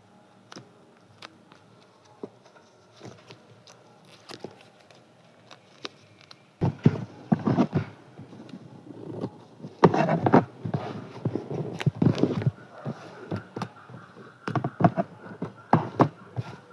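Scissors cutting poster paper: scattered small snips and clicks at first, then, from about halfway, louder stretches of crisp cutting and paper rustling in irregular bursts with short pauses.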